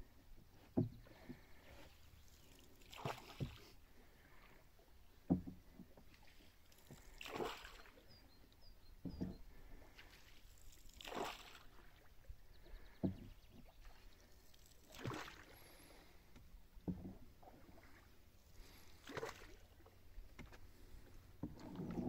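Canoe pushed along on calm water by slow strokes: a swish of water about every four seconds, with a light knock between strokes.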